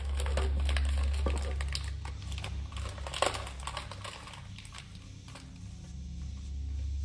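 Thick rubber gloves handling clear plastic tubing and items in a plastic box: a run of small crackles and clicks, busiest in the first few seconds, with one sharp click about three seconds in, over a steady low hum.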